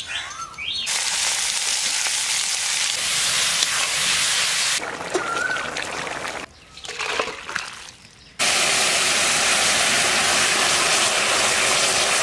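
Curry sizzling and bubbling hard in a wide open cooking pan (karahi), a steady loud hiss heard in several short clips that cut in and out abruptly.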